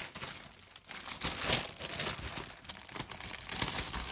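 Crinkling packaging as a blind-box toy is unwrapped by hand: irregular rustles and crackles, with a short lull about half a second in.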